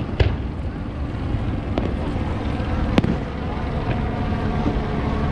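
Aerial fireworks shells bursting at a distance: a few sharp bangs, the loudest about three seconds in, over a steady low rumble.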